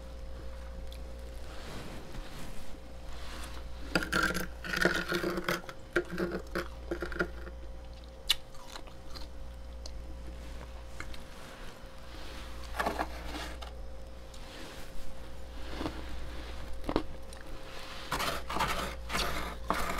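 Metal spoon scraping and scooping thick frost off the walls of a freezer, in irregular bursts of crunchy scraping, over a steady low hum.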